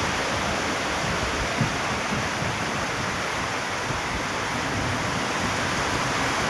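Heavy rain pouring steadily in a continuous hiss, with gusty wind rumbling unevenly underneath.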